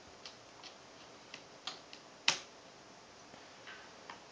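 Scattered light clicks and taps of a small screwdriver and screw against a Toshiba Satellite L755 laptop's screen frame as a screw is set to hold the LCD panel in, the sharpest click about two seconds in.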